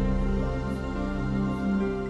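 Background music of slow, sustained notes.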